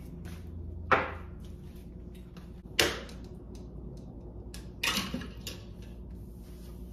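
Three sharp clacks of cookware or utensils being handled, about two seconds apart, over a steady low appliance hum.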